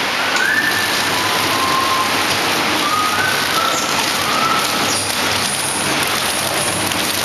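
Wafer flow-wrapping machine running: a steady mechanical hiss and rattle, with a few short high squeaks over it.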